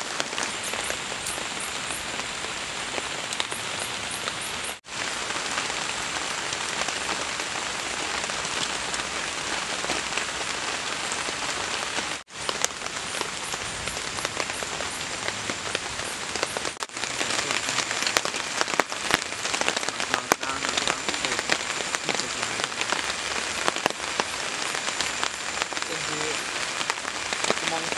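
Steady rain falling on forest leaves and a camp tarp, an even hiss throughout, cut off for an instant three times.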